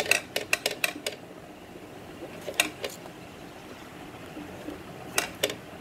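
Sharp plastic clicks and taps from a toy money box being handled, its door open and banknotes being handled inside: a quick cluster in the first second, one more a couple of seconds in, and a couple near the end.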